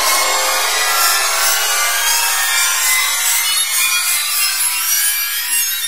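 A loud, harsh scratchy scraping noise, steady throughout, with a high, hissing edge and little bass.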